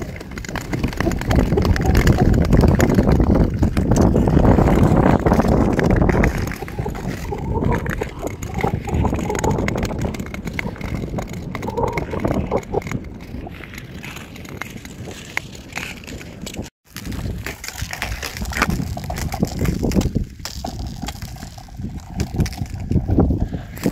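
Nordic touring skate blades gliding and scraping over natural lake ice, a steady hiss with small clicks, mixed with heavy wind rumble on the microphone. The sound breaks off for a moment about two-thirds of the way in.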